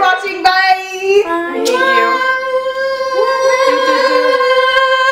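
Girls' voices singing, ending on one long held note.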